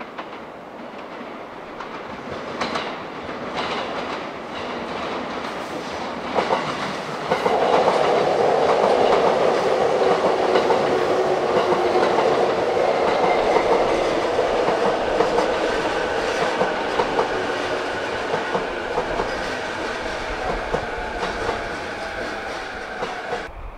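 A JR E233-7000 series electric commuter train passing close by, its wheels clattering over rail joints and points. It builds up as it approaches, is loudest in the middle as the cars go by, then fades as it moves off, with a steady whine underneath in the second half.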